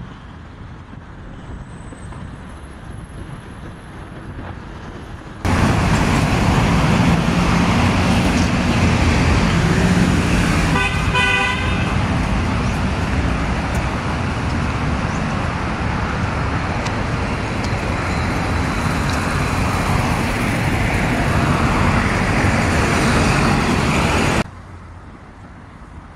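Busy road traffic, cars and other vehicles passing steadily and loudly, with a car horn sounding once for about a second midway. The loud traffic noise starts abruptly a few seconds in and cuts off abruptly near the end, leaving quieter street sound.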